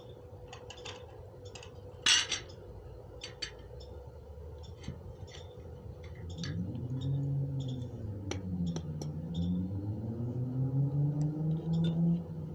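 Light metallic clinks and taps as a welded steel piece is gripped and handled, with one louder clank about two seconds in. From about six seconds a low drone that wavers up and down in pitch joins in.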